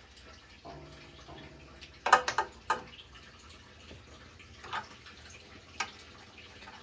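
Screwdriver working at a steel breaker box: a quick cluster of sharp clicks about two seconds in, then two single clicks a few seconds later.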